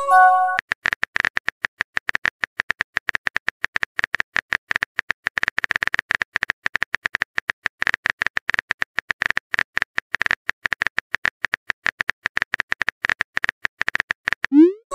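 Phone keyboard typing sound effect: a fast, uneven run of sharp key clicks as a text message is typed. A short chime of a few steady tones fades in the first half-second, and a rising whoosh comes just before the end.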